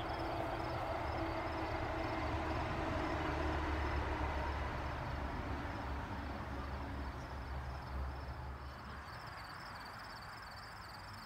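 Crickets chirping steadily in a pulsing rhythm, over a low, engine-like rumble that fades away in the last few seconds.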